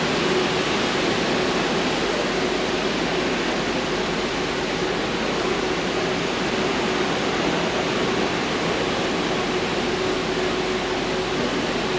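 Steady rushing of air-conditioning blowers cooling a large tent, with a constant hum underneath.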